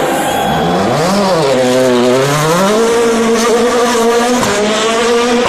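Rally car engine revving hard, its pitch dropping, rising and falling again in the first two seconds, then climbing and holding high, with a brief dip near the end.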